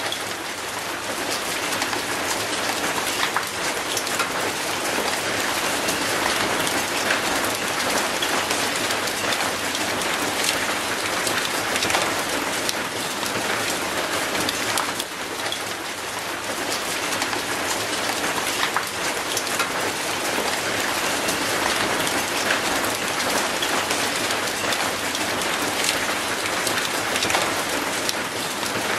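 Steady rain falling on concrete paving and an old rusty gate: a dense even hiss of spatter with many single drops ticking sharply through it.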